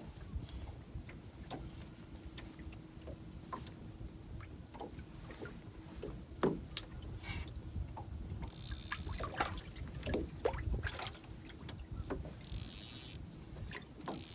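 Small fishing boat sitting on the water: low rumble of wind and water against the hull, with scattered small clicks of handling. In the second half come a few short bursts of hiss.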